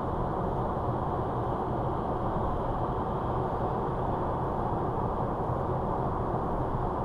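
Steady road and tyre noise of a car cruising at motorway speed, heard from inside the car. It is an even rumble without changes or knocks.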